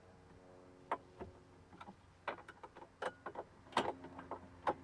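Scattered light clicks and knocks, about eight in a few seconds, from hand work on the Jeep Cherokee XJ's plastic trunk side trim panel and its screw, over a faint steady hum.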